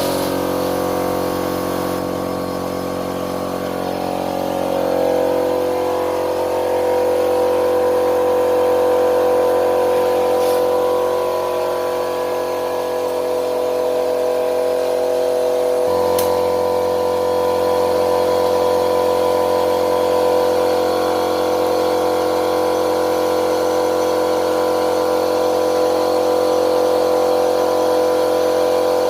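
Electric air compressor running steadily as it inflates a motorcycle tyre freshly filled with puncture sealant. Its hum shifts about halfway through.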